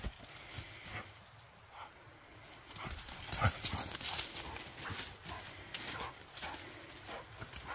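Airedale terrier's paws running and scuffling on dry leaves and dirt during a burst of zoomies, an irregular quick patter of footfalls starting about two and a half seconds in.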